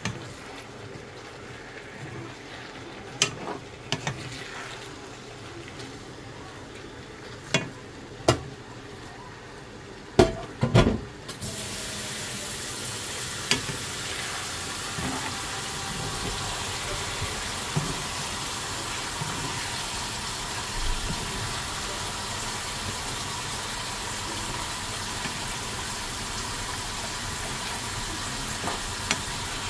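Sliced fish cakes and onions being stir-fried in a seasoning sauce in a nonstick pan, a wooden spatula scraping and knocking against the pan several times. About eleven seconds in a loud steady sizzling hiss comes in and continues under the stirring.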